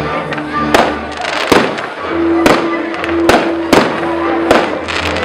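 Fireworks bursting: about seven sharp bangs at uneven intervals, over music with long held notes.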